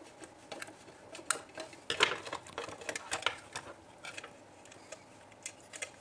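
Scattered small clicks and scrapes as a screwdriver works a brass terminal screw on a plastic switch plate and the plate and its wires are handled. The sharpest clicks come about two seconds in and again a little after three seconds.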